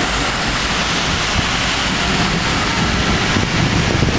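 Heavy rain pouring onto a flooded street, a steady rushing hiss. Near the end a motor scooter rides through the floodwater, its engine and splashing growing louder.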